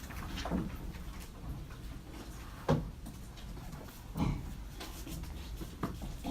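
University library room tone: a steady low hum with a few scattered soft knocks and shuffles from people working at desks, the loudest knock about two and a half seconds in.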